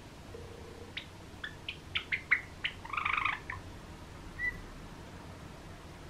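Cream Java sparrow calling: a run of short clicking notes starting about a second in and coming quicker, running into a brief rough warble, then a single short whistled note.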